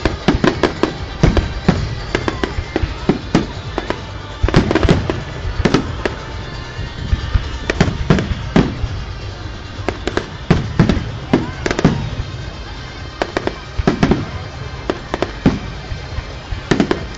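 Fireworks display: a rapid, irregular run of bangs and crackling reports, some deep booms among sharper pops.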